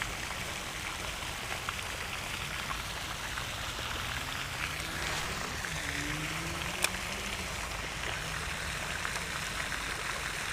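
Steady pattering noise of water, with one sharp click about seven seconds in.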